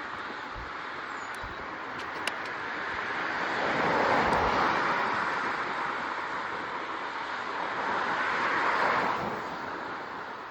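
Steady rushing wind and road noise from a bicycle ride, swelling twice, around four and nine seconds in, with a single sharp click a little after two seconds.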